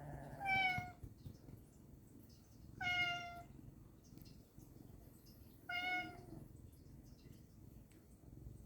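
Pet cat meowing three times, about two and a half seconds apart, each a short call that falls slightly in pitch: the cat asking to keep being petted.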